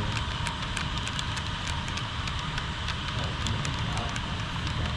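HO scale model train running on the layout track: a steady rumble and hiss with many irregular light clicks from the wheels on the rails.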